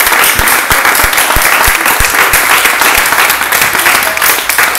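A small crowd applauding, the clapping dense and loud, with low thumps about three times a second underneath.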